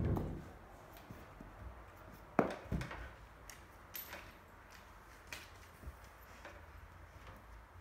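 Scattered knocks and taps in a quiet room, with two louder thumps close together about two and a half seconds in.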